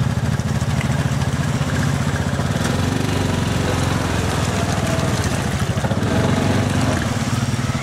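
Off-road vehicle engines, a Yamaha Rhino side-by-side and ATVs, running at low speed with a steady, rapid low pulse.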